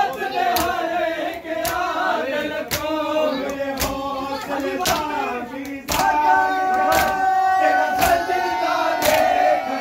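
Men's voices chanting a Punjabi noha (Muharram lament) together, with sharp slaps of hands striking bare chests in matam about once a second. From about six seconds in the chant holds a long, steady note.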